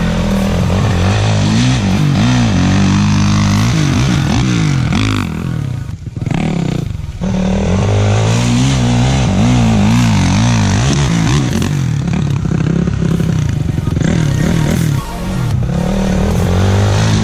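Dirt bike engine revving up and down over and over as the rider works the throttle on a steep dirt hill climb, with short drops in the revs about six seconds in and again near the end.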